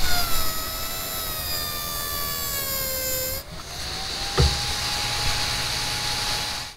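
Small electric power tool's motor whining, its pitch sagging slowly as if under load, then after a click running at a steady pitch before cutting off abruptly.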